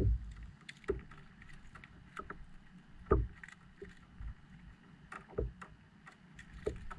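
A jack held out of the water making several short croaking grunts a second or so apart. Low water and wind noise runs under them.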